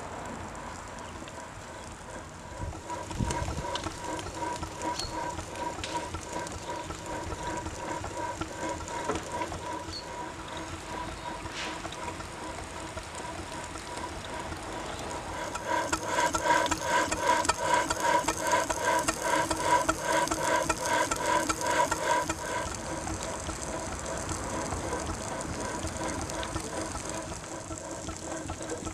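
4½-inch scale Burrell 6 nhp agricultural steam traction engine running stationary, its motion turning with a steady rhythmic beat. The beat picks up and grows louder for several seconds past the middle, then settles back.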